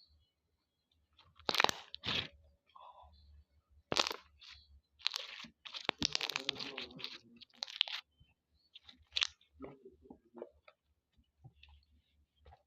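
Slime being squeezed and pressed by hand, making a string of short, sharp crackling noises, with a longer stretch of them a little past the middle and softer ones near the end.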